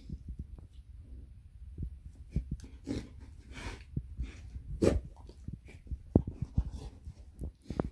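A dog chewing and licking at its own paw: irregular wet mouth clicks and smacks, with a few snuffling breaths.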